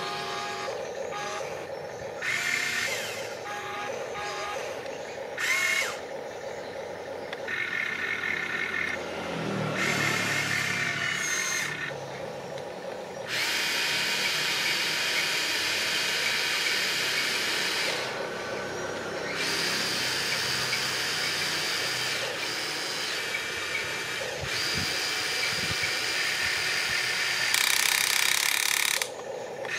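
Small electric motors of a remote-control excavator whining as it works, starting and stopping in spells of one to several seconds and changing pitch from one spell to the next.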